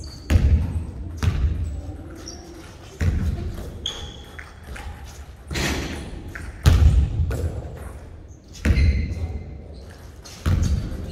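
A basketball thudding on a hardwood gym floor, about seven heavy impacts at uneven intervals, each echoing in the large hall. A few short high squeaks come between the thuds.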